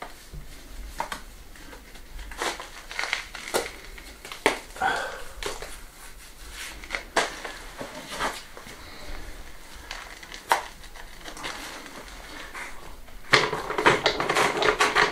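Building stones being handled and sorted for a rubble stone wall: scattered clacks and knocks of stone on stone with scraping. Near the end comes a longer stretch of rattling and scraping as the stones are rummaged through.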